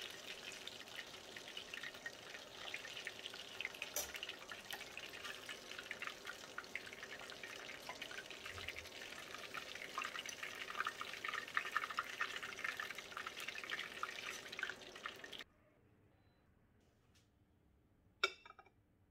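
Chicken lollipops deep-frying in hot oil: a dense crackling sizzle that cuts off abruptly about three-quarters of the way through. Near the end there is a single sharp knock.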